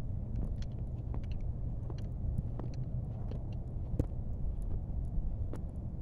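Footsteps crunching in fresh snow, irregular sharp crunches, over a steady low rumble.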